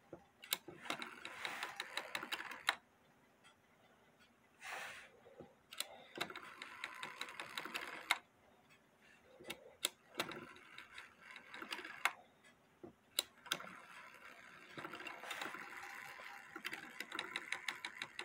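Brass strike train of a Waterbury ship's bell clock movement running in three short bursts of rapid clicking, with single clicks between, as the rack is worked by hand. The lift and rack springs are broken and missing, so the strike is not working well.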